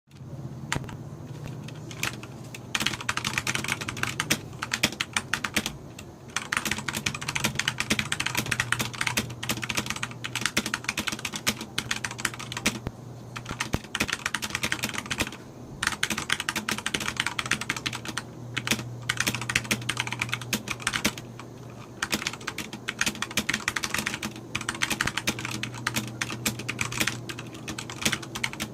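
Fast typing on a Corsair K65 Rapidfire mechanical keyboard with Cherry MX Speed linear switches and PBT keycaps: dense runs of key clacks, broken by short pauses every few seconds. A steady low hum runs underneath.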